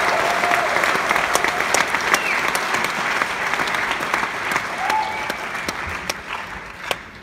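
Theatre audience applauding, with a few cheers over the clapping; the applause dies down near the end.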